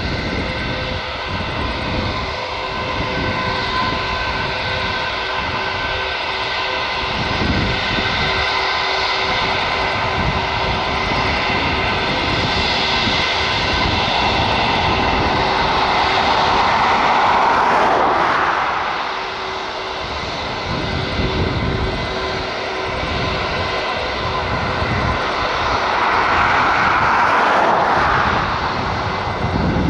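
Airliner engines running with a steady whine of several pitches, swelling twice, once past the middle and again near the end. Wind gusts rumble on the microphone underneath.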